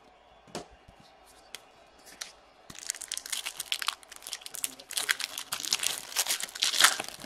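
Trading card pack wrapper being torn open and crinkled, a dense crackling that starts about three seconds in and runs for about four seconds, after a few faint taps of cards being handled.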